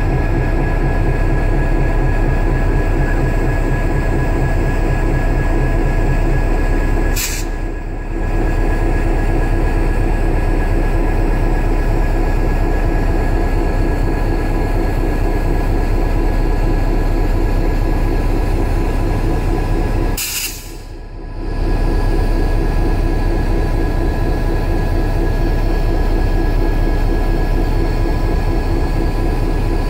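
EMD GP50 diesel-electric locomotive idling, its 16-cylinder two-stroke diesel running as a steady hum with fixed tones above it. The sound dips briefly twice, about a quarter and two thirds of the way through.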